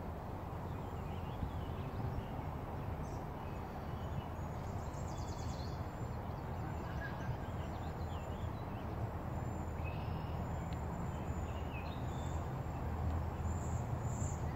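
Outdoor ambience: a steady low rumble, with faint, short bird chirps scattered through it.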